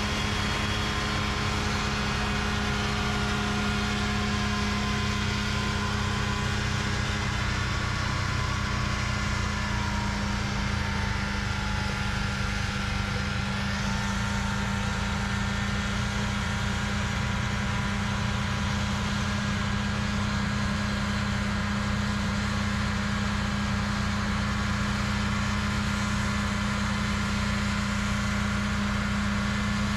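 Backhoe with a snowmobile-engine-driven snowblower on its bucket, running steadily at constant speed. The engine note holds even, with a slight sag in pitch about a third of the way in.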